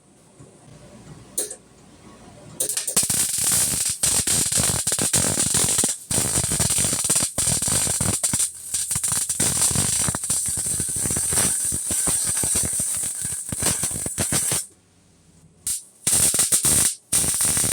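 Electric arc welding on a steel mini bike frame: a steady, sharp crackling arc for about twelve seconds, then a few short bursts like tack welds that stop abruptly near the end.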